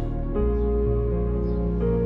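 Calm, slow background music: soft sustained chords that change about half a second in and again near the end.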